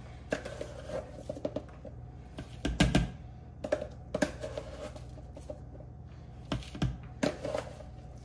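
Scattered light taps and knocks as shredded coconut is scooped with a measuring cup and tipped into a mixing bowl, the loudest knock about three seconds in, over a low steady hum.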